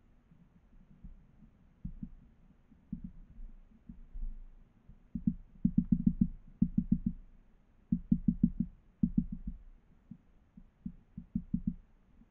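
Great tit pecking at a hanging seed feeder close to the microphone: bursts of rapid dull taps, several a second, sparse at first and thickest in the second half.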